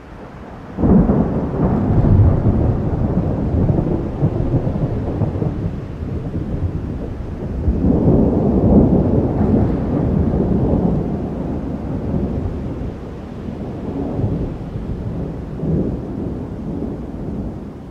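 Thunder breaks in suddenly about a second in and rolls on in long low rumbles. It swells again midway and dies away in smaller rolls, over steady rain.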